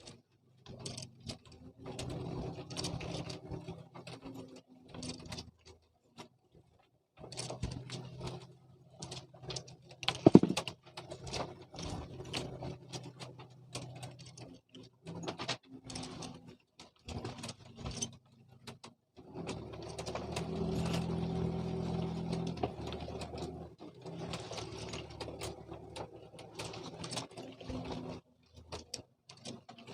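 Fishing reel being cranked: a gear whir with many clicks, in four spells of a few seconds each. A sharp knock comes about ten seconds in.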